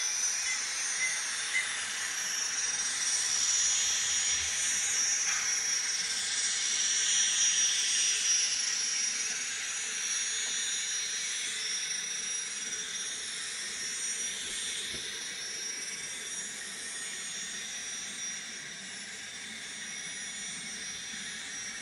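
Sound decoder of an N scale model Union Pacific GTEL gas-turbine locomotive No. 26 playing its turbine sound through a tiny speaker: a steady hissing whine with high tones over it, loudest about seven or eight seconds in, then fading toward the end.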